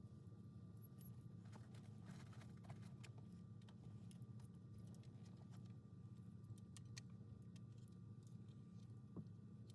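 Near silence: a steady low hum with scattered faint, irregular clicks.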